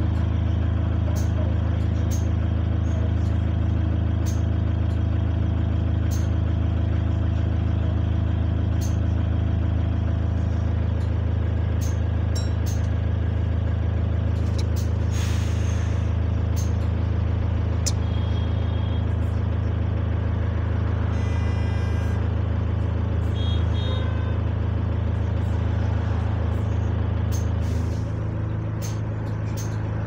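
A single-deck bus's diesel engine running steadily, heard from inside the passenger saloon, its note changing near the end. About halfway through there is a short hiss of air, and a brief beep a few seconds later.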